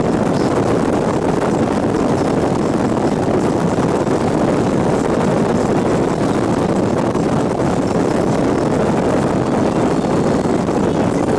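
Steady road and wind noise of a car driving along a highway.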